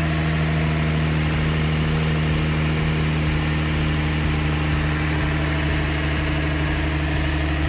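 Nissan 350Z's VQ35DE V6 engine running at one steady speed, with no revving, while it warms up to open the thermostat during bleeding of air from the cooling system.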